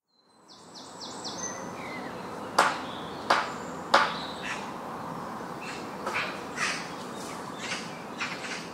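Birds chirping and calling over a steady background hiss that fades in at the start. A quick run of high notes comes first, then three loud sharp calls about two-thirds of a second apart, then softer, scattered calls.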